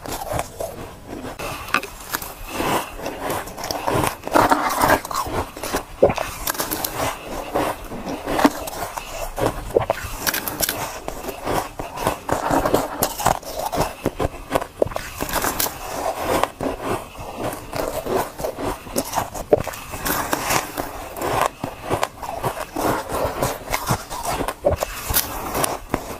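Soft shaved ice being bitten and chewed close to the microphone: dense, crisp crunching and crackling that goes on without a break.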